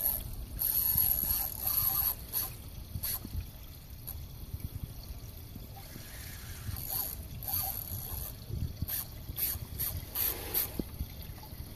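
Penn Spinfisher V 3500 spinning reel being cranked under load while fighting a large snook, with short high-pitched bursts of reel and line noise over a low rumble.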